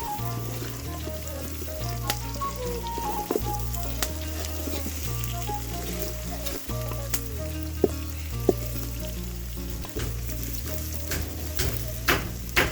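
Food sizzling in hot cooking oil in a pot, with some stirring, over background music with a steady bass line. Several sharp knocks come near the end.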